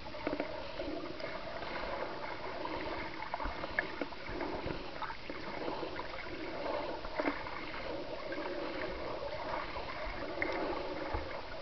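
Muffled underwater water noise picked up by a camera submerged in its waterproof housing: a steady wash with uneven swells and a few faint sharp clicks.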